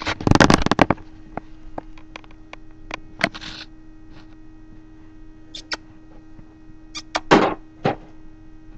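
A puppy scuffling as it plays with a toy on a fabric armchair: scattered light clicks and bumps, with a loud burst of rustling near the start and short rough rustles later, over a steady low hum.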